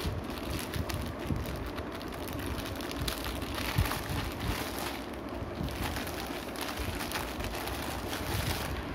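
White plastic packaging bags and their clear plastic wrapping crinkling and rustling as hands handle them: a continuous crackle, busiest in the middle.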